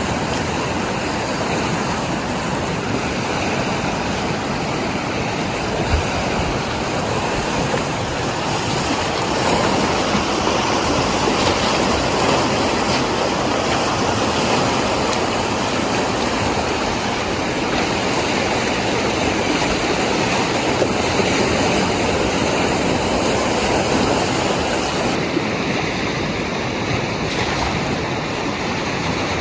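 Steady rush of a fast-flowing river, a dense, even roar of water.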